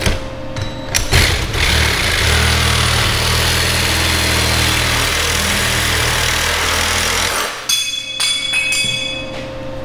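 Reciprocating saw (Sawzall) cutting through the steel steering column, running for about six seconds and then stopping. A few clinks of ringing metal follow near the end.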